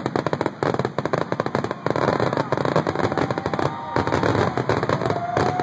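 Dense run of rapid, sharp pops and crackles, many a second, growing busier and louder about two seconds in.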